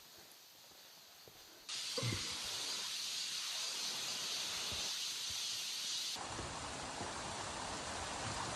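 Quiet for the first couple of seconds, then the steady rush of a mountain stream's falling water cuts in suddenly. It changes abruptly about six seconds in to a fuller, deeper rush.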